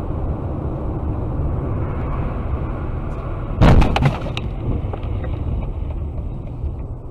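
Steady road and tyre rumble inside a car on a snowy road, then, about three and a half seconds in, a loud bang and crunch of a collision with the rear of a white sedan, followed by a few smaller knocks and rattles.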